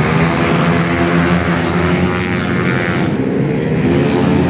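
Several racing scooter engines running hard around a short track: a loud, dense buzzing drone whose pitch shifts as the bikes accelerate and pass.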